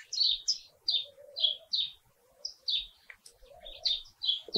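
A bird chirping over and over, short high chirps two or three times a second, some with a fainter lower note beneath them.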